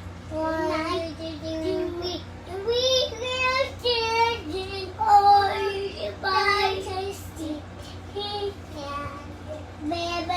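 A young child singing in a high voice, phrases of held notes that slide up and down, over a faint steady low hum.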